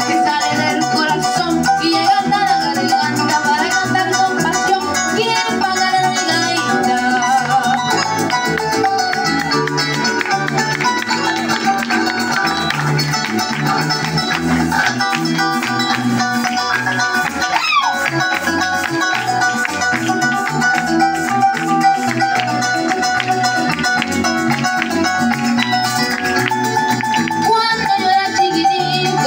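Live Venezuelan llanero music, a golpe de quirpa, played by harp, cuatro and electric bass over a steady shaking rattle of maracas, with a walking bass line.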